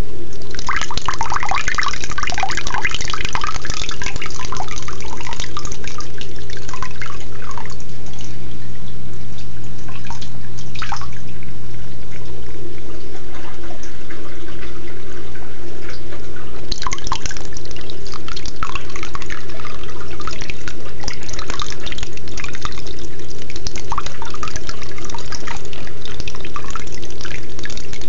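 Water trickling and splashing down a live-rock waterfall into a small shallow reef aquarium, busier at the start and again over the second half, over a steady low hum.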